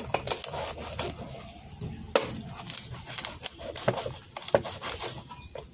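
Large kitchen knife cutting down through crispy air-fried pork belly skin on a plastic cutting board, the crackling crunching and snapping in a run of irregular sharp cracks.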